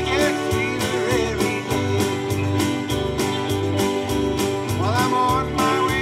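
Live country-gospel band playing: acoustic guitar over a bass line and a steady beat.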